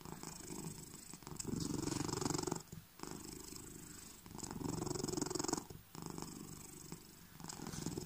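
Domestic cat purring close to the microphone, a low rumble that alternates between louder and softer phases of about a second and a half each as the cat breathes in and out.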